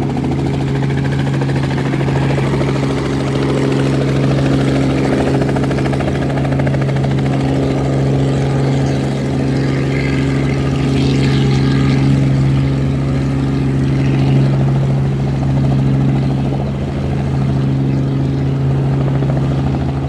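Helicopter running steadily, a strong even hum with a rapid rhythmic chop from the rotor.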